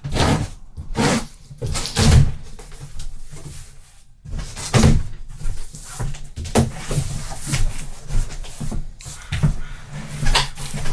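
Large cardboard shipping box being opened and handled: irregular scraping and rubbing of cardboard with sharp knocks and thumps.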